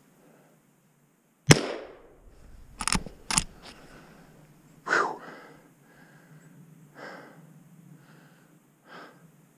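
A single scoped hunting rifle shot about a second and a half in, followed by two sharp clicks a half second apart as the rifle is handled, then a few softer knocks and rustles.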